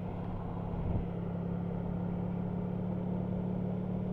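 Honda 1100cc V4 motorcycle engine running at steady revs while under way, with a short bump in level about a second in.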